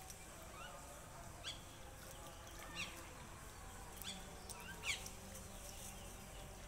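Small birds chirping: a handful of short, sharp chirps that each sweep upward in pitch, scattered a second or so apart, with the loudest one about five seconds in.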